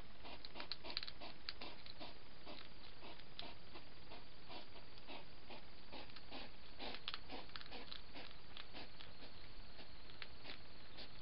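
Hedgehog eating from a food bowl: a quick, irregular run of small wet chewing clicks and snuffles, several a second.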